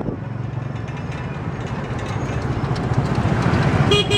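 Tuk-tuk's motorcycle engine running under way with steady road rumble, growing louder in the second half. Near the end a vehicle horn gives a few quick beeps.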